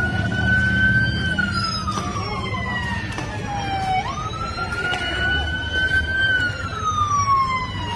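An emergency vehicle's siren wailing, its pitch jumping up quickly, holding, then sliding slowly down, with a fresh rise about four seconds in. A crowd's voices and low street noise sound beneath it, with a few sharp knocks.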